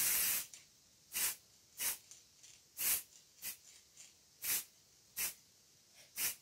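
Aerosol spray-paint can hissing: a longer spray ends about half a second in, then about seven short puffs follow, roughly one a second.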